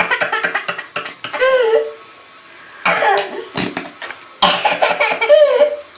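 Three bursts of sputtering, fart-like noise, with a child's high laughing sounds between and after them.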